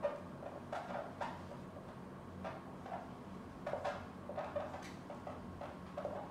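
Marker writing on a whiteboard: short, irregular scratches and squeaks of the pen strokes, over a faint steady low hum.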